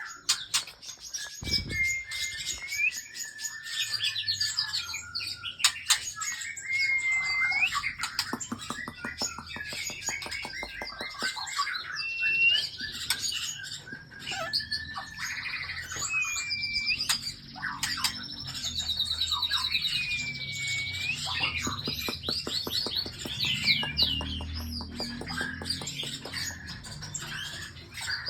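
Several caged songbirds singing and chirping at once: whistled notes that sweep upward at the end, rapid trills and chattering, with bursts of fast clicking notes.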